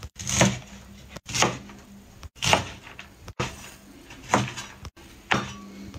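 Steel cleaver chopping long beans (cowpeas) on a wooden cutting board: a sharp knock of the blade striking the board about once a second.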